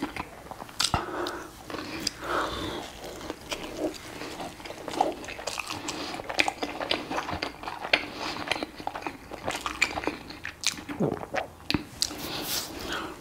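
A person chewing and biting mouthfuls of a cheeseburger, picked up close by a lapel microphone: irregular clicks and snaps from the mouth with no steady rhythm.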